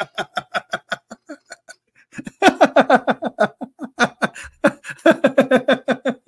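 A man laughing hard in quick, rhythmic ha-ha pulses, trailing off about two seconds in, then breaking out again louder.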